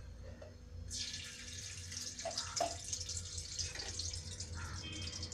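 Ghee hitting a hot brass pan, starting to sizzle and crackle suddenly about a second in and going on steadily as it melts, with a couple of light knocks partway through.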